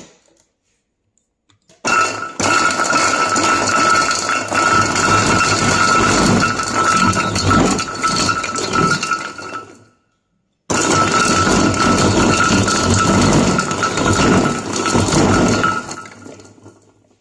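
InstaCuppa electric chopper's motor running with the garlic-peeler attachment, a steady high whine over the rattle and clink of garlic cloves being tumbled against the bowl as their skins come off. It runs for about eight seconds, stops briefly, then runs again for about six seconds and winds down near the end.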